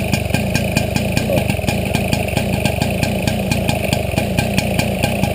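Small two-stroke moped engine idling just after a cold start, steady with an even pulse of about six beats a second. It runs evenly, with no pinking knock, which the owner takes as a sign of a well-set carburettor.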